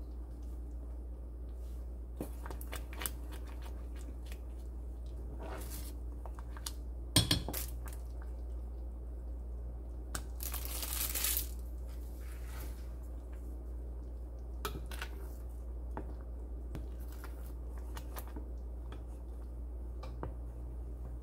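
Small kitchen handling sounds over a steady low hum: a sharp knock about seven seconds in, a brief rustle a little after ten seconds as a slice of cheese goes into the soup, and light clicks and scrapes of a wooden spoon in a stainless steel pot.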